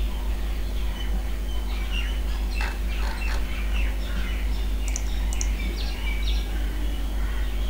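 Birds chirping in short calls over a steady low hum, with a few sharp clicks a few seconds in.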